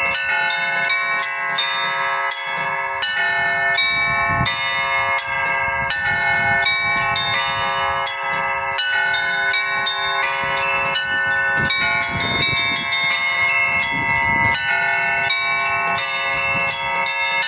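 Orthodox monastery bells rung by an electromechanical belfry: small bells struck in a quick, unbroken run over the ringing of the larger bells.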